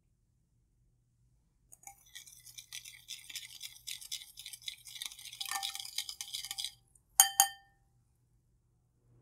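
A wire whisk beating yeast and warm water in a ceramic bowl, its wires clinking and scraping rapidly against the bowl for about five seconds, starting about two seconds in. Then two sharp ringing knocks of the whisk on the bowl.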